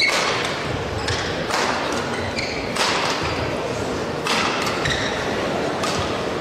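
Badminton rackets striking a shuttlecock in a fast doubles rally, a sharp crack every second or so, the first one a jump smash and the loudest. Short shoe squeaks on the court mat come between the hits, over a steady hall ambience.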